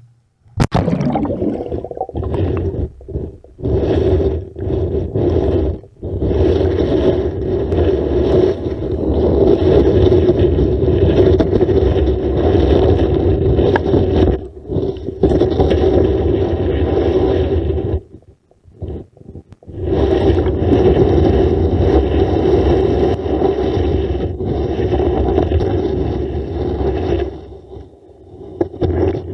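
Muffled scraping and rumbling of a magnet-mounted GoPro in its waterproof housing as it is dragged underwater along a sandy, stony riverbed. A sharp hit about half a second in is where it strikes the water. The noise breaks off briefly several times, for about two seconds near two-thirds of the way through, as the pull pauses.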